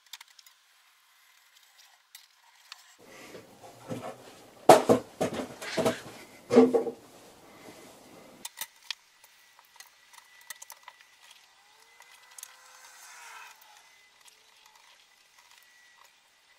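Metal clattering and knocking as a length of aluminium angle and steel tools are handled and set down on a workbench, loudest in a few sharp knocks around the middle. Afterwards only faint ticks and a light scratching.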